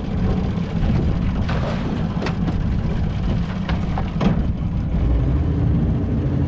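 Small boat's outboard motor idling with a steady low rumble, and a few sharp knocks or clicks between about one and a half and four and a half seconds in.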